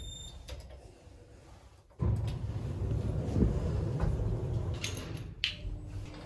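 Passenger lift starting to move about two seconds in: a steady low rumble and hum that carries on. It follows a short electronic beep at the start and a few light clicks.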